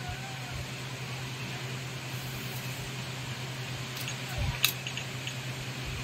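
A plastic bottle being handled and turned in the hands over a steady low hum, with a low knock and a sharp click about four and a half seconds in.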